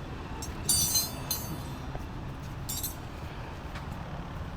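Metal clinking: a cluster of ringing metallic clinks about a second in, another just after, and a short one near three seconds, from metal tools or wheel parts being handled during a motorcycle tyre change, over a steady low rumble.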